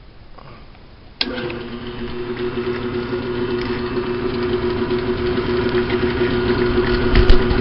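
Electric drill starting up about a second in and running steadily, drilling a hole through a small brass pipe, with a sharp knock near the end.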